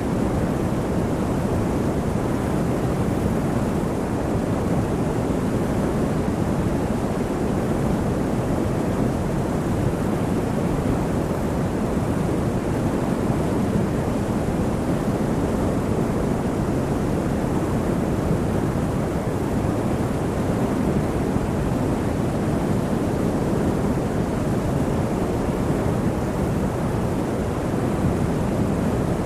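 Steady, even rumbling noise, strongest in the low end, with no distinct events or changes.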